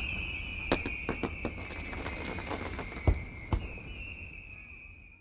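Fireworks: a long, high whistle that slowly falls in pitch, with sharp cracks and bangs over it, fading out near the end.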